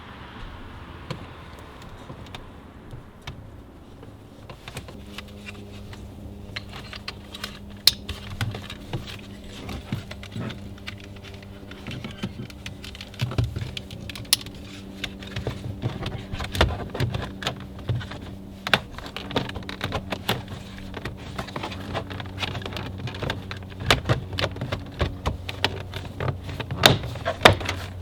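Many irregular clicks, rattles and light knocks, like small parts and tools being handled, over a steady low hum; the clicks come thicker after about five seconds.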